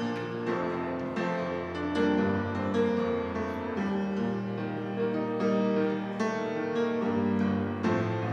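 Piano playing slow sustained chords, a prelude-style instrumental with the chords changing every second or two.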